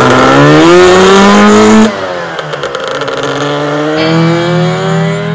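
Lambretta scooter with a 275cc Targa Twin two-stroke twin-cylinder engine accelerating hard as it rides away. The engine note rises for about two seconds, drops sharply at a gear change, then climbs again, fainter with distance.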